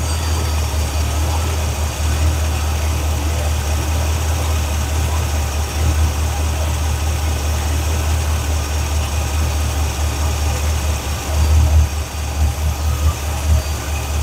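Square body Chevy C10 hot rod's carbureted engine idling with a steady low rumble while the float level of its four-barrel carburetor is being adjusted; the float was set low, starving the engine of fuel. Near the end the rumble swells briefly a few times.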